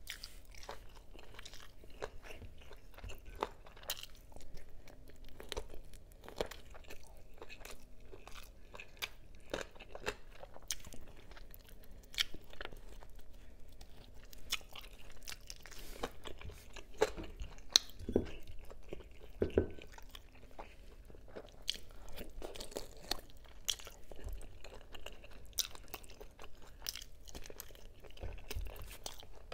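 A person chewing and biting close to the microphone, eating rice and adobo chicken wings by hand, with many irregular mouth clicks and smacks.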